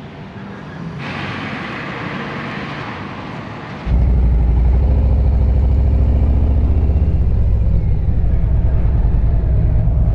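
Harley-Davidson V-twin motorcycle engine cutting in abruptly about four seconds in and running loud with a low, pulsing exhaust note, after a few seconds of soft hiss.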